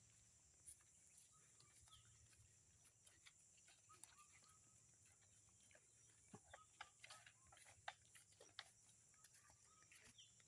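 Near silence: faint outdoor ambience with scattered small clicks and ticks.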